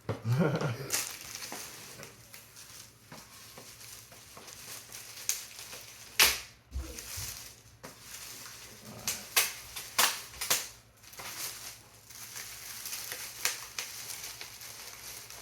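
Packaging being pulled and worked loose from an RC plane wing in its box: scattered sharp snaps and crackles over a light rustle, the loudest about six seconds in.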